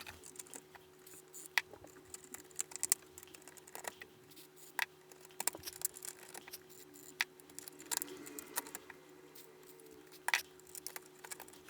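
Sparse light clicks and small taps from work on the chip sockets of a computer circuit board, over a faint steady hum.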